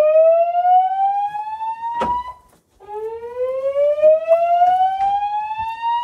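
Fire alarm evacuation tone from Gentex speaker strobes on a Notifier voice-evacuation system, sounding between the recorded announcements during an alarm test. It is a rising whoop: the pitch climbs steadily, one sweep ends a little over two seconds in, and the next begins about half a second later and climbs to the end.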